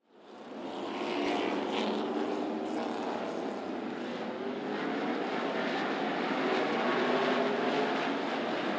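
A pack of NASCAR K&N Pro Series stock cars' V8 engines running hard together as the field takes the green flag, a dense, steady engine din. It fades in over about the first second.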